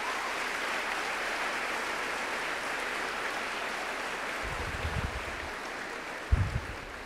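A large crowd of students applauding steadily in a gymnasium, easing off a little near the end. Two short, low thuds come in the second half.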